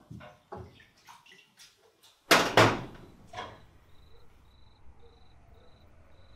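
Light footsteps and knocks, then a door slammed shut a little over two seconds in, banging twice in quick succession, with a weaker thud just after. It is followed by a low steady hum with a faint high chirp repeating about twice a second.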